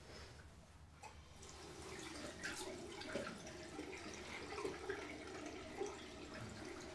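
Water running from a tap into a bathroom sink and splashing as someone bends over the basin to wash, starting about a second in; faint and irregular.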